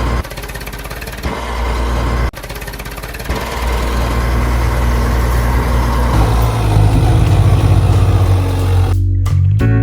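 Heavy truck engine running, cut off abruptly twice early on, then growing louder and revving in pulses. Guitar music comes in at the very end.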